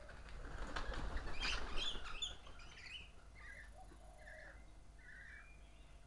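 A group of birds taking off together in a burst of wingbeats lasting about two seconds, with sharp chirping calls over it. A few single calls follow.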